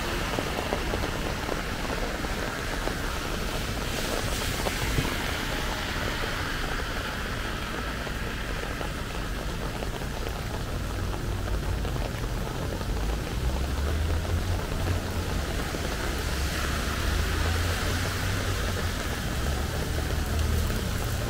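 Steady rain falling, an even hiss. A low rumble comes in a little after halfway.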